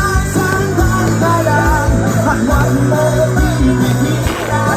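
Live rock band playing a song, with a singer over a steady bass line.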